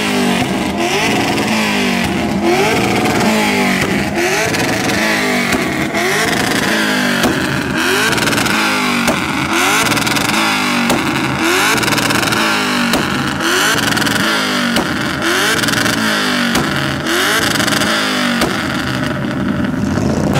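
Car engine revved over and over, its pitch climbing and dropping back about once a second.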